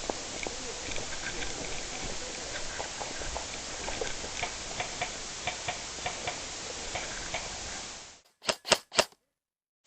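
Steady microphone hiss with scattered light ticks, a few each second, like airsoft guns popping in the distance. About eight seconds in the hiss cuts off, and three sharp clicks come in quick succession before silence.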